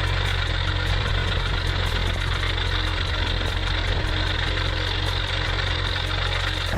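Engine of a heavy forestry machine running steadily with a deep, even hum.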